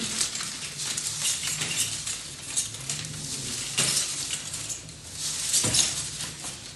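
Shrink-wrapped pack of plastic water bottles crinkling and knocking as it is lowered and lifted in deadlift repetitions, with sharper knocks about four seconds in and again near six.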